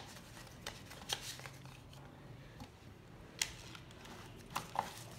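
Quiet handling of DVD packaging: card inserts and a plastic sleeve rustling, with a few light clicks and taps as they are shuffled and laid on a table.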